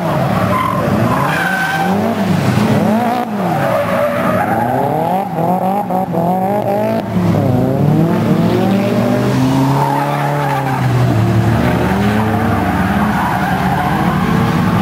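A drift car's engine revs up and drops back again and again as the throttle is worked through a slide, with the tyres skidding and squealing.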